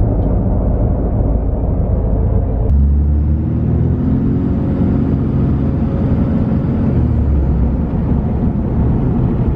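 Motor vehicle sound: a loud, steady low rumble, whose tone changes abruptly about three seconds in.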